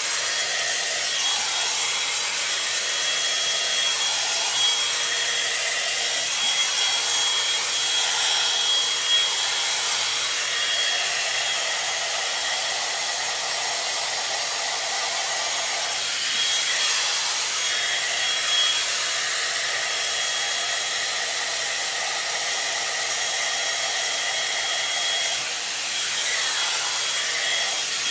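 Hair dryer brush (hot air brush) blowing on its high setting while drying a section of hair: a steady rush of air with a thin, high motor whine.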